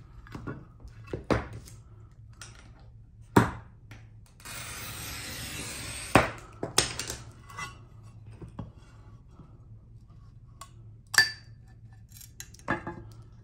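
A pencil-style glass cutter's wheel scoring a sheet of stained glass, a steady hiss lasting about a second and a half near the middle. Around it come sharp clicks and snaps as the glass is broken along score lines with running pliers and tools are handled on the glass.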